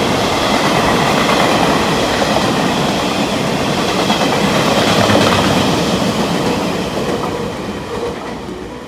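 Taiwan Railways Chu-Kuang express, a string of orange-and-cream passenger coaches behind an electric locomotive, running through the station at speed. The wheels rumble loudly over the rails, and the sound fades over the last two seconds or so as the train draws away.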